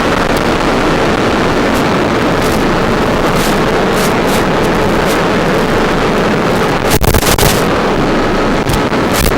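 Strong wind blowing across the microphone as a loud, steady rush, with a harder gust buffeting it about seven seconds in.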